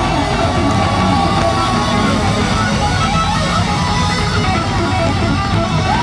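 Rock band playing live, heard from the crowd: electric guitar leading over bass and drums, with some gliding guitar notes.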